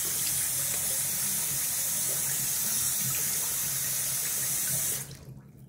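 Water running steadily from a bathroom tap into a sink during a face rinse after a shave; the tap is shut off suddenly about five seconds in.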